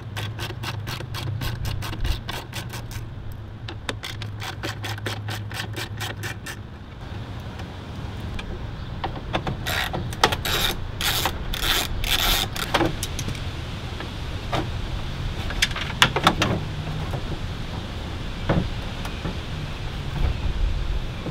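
Socket ratchet clicking in a long, fast, even run as 8 mm screws are backed out of the top of a headlight, then shorter runs of clicks and rattles and a few single clicks, over a steady low hum.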